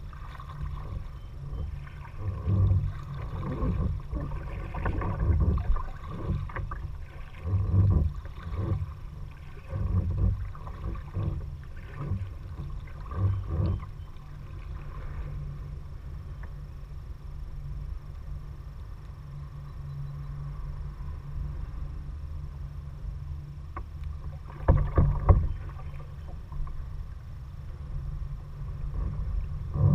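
Kayak paddle dipping and splashing in the water in a rough stroke rhythm, about one stroke every second or two. The strokes fade to a quieter stretch partway through, then a few louder splashes come near the end, over a steady low rumble.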